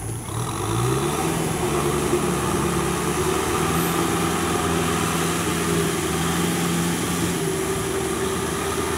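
Kubota 6040 tractor's diesel engine running under load as it drives a rotary tiller through paddy mud. It rises in pitch during the first second, then holds a steady note.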